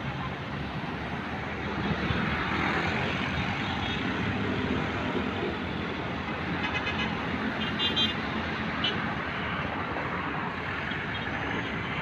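Road traffic passing: cars, vans and motorcycles driving by on a multi-lane road, a continuous rush of engines and tyres that grows louder about two seconds in.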